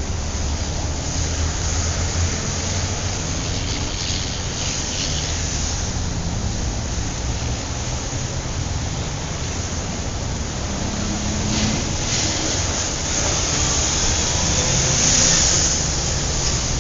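City street traffic: a steady rumble of engines and tyre noise, with several vehicles swelling past and fading, the loudest pass near the end.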